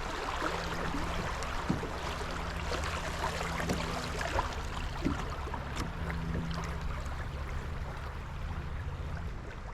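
Steady rush of flowing river water, with a few faint ticks scattered through.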